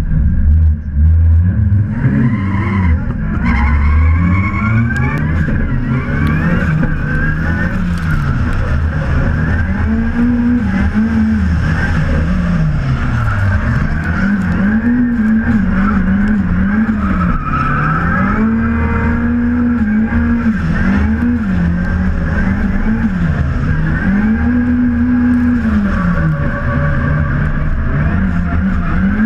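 Toyota AE86 drift car's engine at full throttle, pitch rising and falling over and over as the car drifts, with tyres squealing. It starts from a low rumble and revs up about two seconds in.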